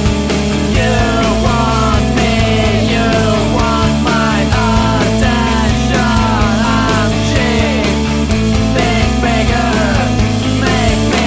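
Rock music: a full band with bass, drums and guitar, a high lead line sliding down in pitch over and over above a steady bass.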